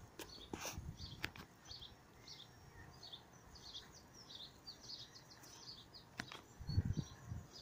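A small songbird chirping in a quick, continuous run of short high notes, with a few low rumbles near the end.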